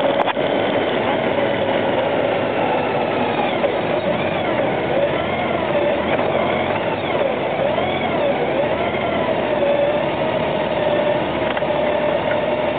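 Honda GL1800 Gold Wing motorcycle cruising at road speed, heard from its handlebar: the flat-six engine runs steadily under a constant rush of air, with a faint whistle that slowly wavers up and down in pitch.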